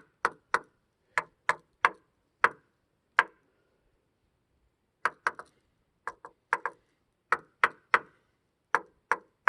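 A lighter knocked against wet wood: sharp knocks in quick groups of two or three, with a pause of about a second and a half a little after three seconds in.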